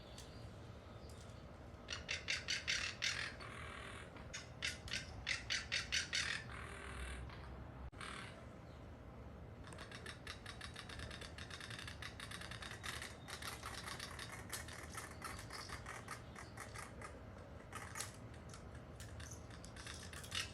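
Hawks calling in fast series of sharp notes, about seven a second: two loud bursts in the first six seconds, then a longer, softer run of the same rapid notes.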